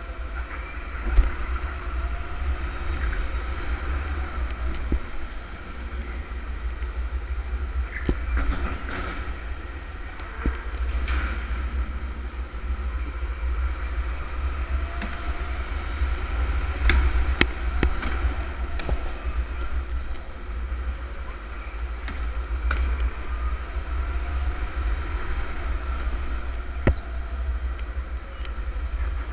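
Electric go-kart driven at speed, heard from a camera mounted on it: a continuous low rumble of wind and chassis vibration with a faint motor whine that rises and falls. Several brief sharp noises come through in the middle stretch.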